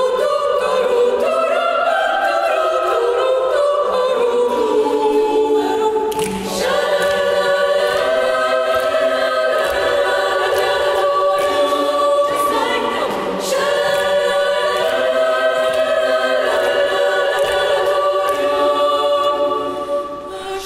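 Girls' choir singing a cappella in several parts, holding long sustained chords, with short breaks between phrases about six and thirteen seconds in.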